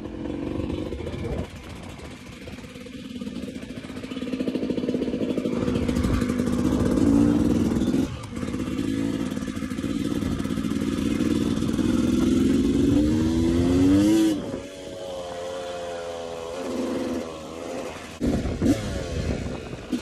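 Yamaha YZ250 two-stroke dirt bike engine being ridden, the throttle opening and closing. It climbs in pitch to a peak about fourteen seconds in, drops as the throttle closes, and picks up again near the end.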